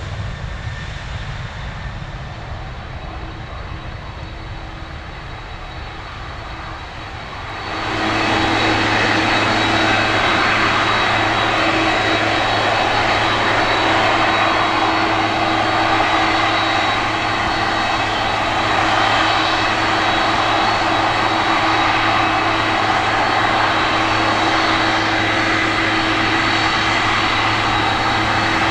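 Boeing 747-400's four jet engines at takeoff thrust. A quieter low rumble gives way, about eight seconds in, to a sudden step up to a much louder, steady jet noise with a held low hum and a high whine.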